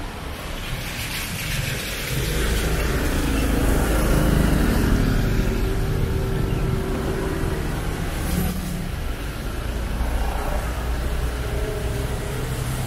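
Road traffic on a city street: a motor vehicle's engine passes close by, swelling from about two seconds in and loudest around four to five seconds, over a steady traffic rumble.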